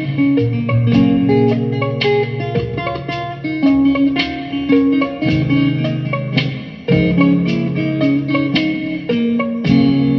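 Mellow guitar music: a run of plucked guitar notes over sustained low bass notes.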